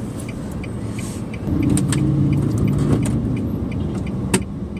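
Road traffic heard from inside a car's cabin at a traffic light: a steady low engine hum, with the engine sound growing louder about a second and a half in as the queue starts to move. A light, regular ticking runs under it, and there is a single sharp click near the end.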